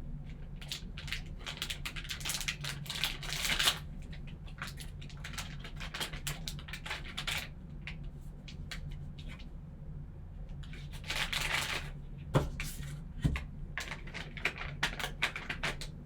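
Trading card pack being opened and the cards handled: rustling, crinkling and tearing of the packaging and sliding of cards in short spells, with two sharp knocks a little past twelve and thirteen seconds in.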